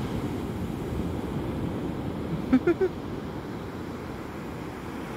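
Steady low rumble of surf and wind on the microphone. About two and a half seconds in, three short pitched notes stand out briefly.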